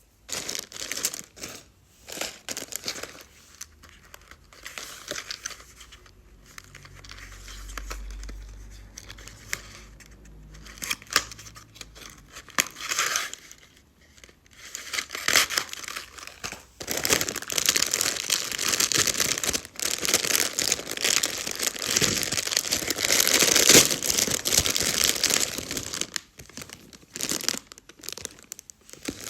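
Packaging being crinkled and torn open by hand: irregular bursts of rustling at first, then denser and louder near-continuous crinkling through the second half.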